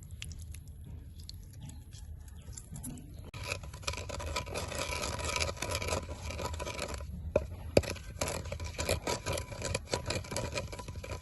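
Scraping and clicking of a utensil working a sweet-sour chili sauce, sparse at first and busy and continuous from about three seconds in, over a low steady rumble.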